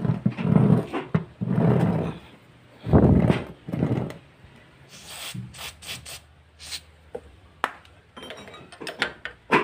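Workshop tool work: three rough scraping or rubbing strokes in the first few seconds, then a run of light sharp clicks and taps.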